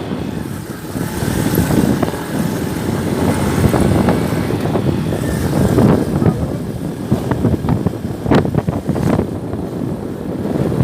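Vehicle travelling on a highway: steady rumbling road and wind noise that swells and fades, with a couple of short knocks about eight and nine seconds in.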